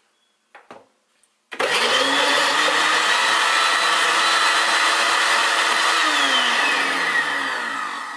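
Countertop blender switched on about one and a half seconds in, its motor running steadily as it churns a jar of frozen blueberry slush. Near the end the motor's pitch falls and the sound fades as it winds down.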